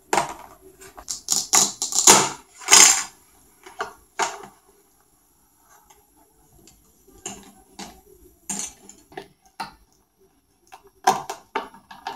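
Plastic toy vegetables being handled and cut apart with a plastic toy knife on a plastic board. Irregular clacks and short scraping rasps as the velcro-joined pieces separate, sparser for a few seconds midway.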